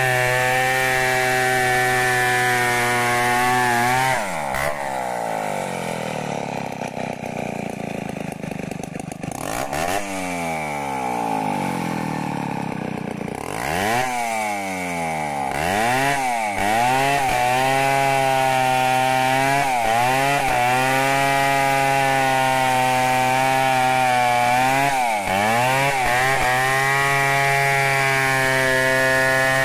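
Stihl 070 two-stroke chainsaw ripping a log lengthwise at full throttle. About four seconds in the revs fall away and rise and fall repeatedly while the chain is out of the cut. From about halfway the engine climbs back to a steady high pitch under load, dipping briefly a few times as the chain bites into the wood.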